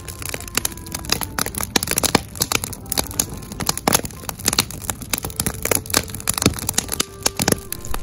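Wood campfire in a metal fire pit crackling and popping, with many sharp irregular pops.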